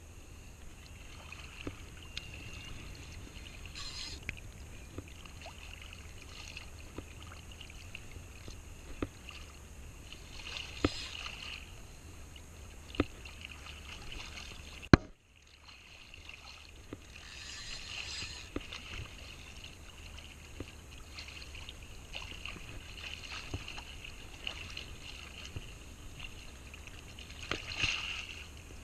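Spinning reel being cranked to retrieve line against a hooked fish, its gears whirring unevenly with small clicks, over water sloshing around the wader's legs. There is one sharp knock about halfway through.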